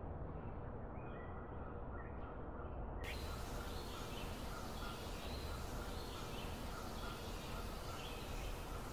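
Outdoor ambience: a steady low rumble with small birds chirping in short repeated notes. A hiss comes in about three seconds in and stays.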